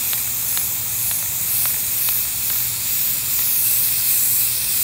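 Rust-Oleum aerosol spray paint can spraying in one continuous hiss as a coat of paint goes on.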